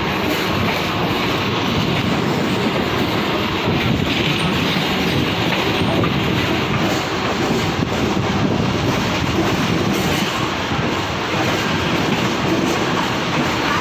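Mumbai suburban electric local train running on the rails, heard from on board: a steady loud rumble of wheels and carriages.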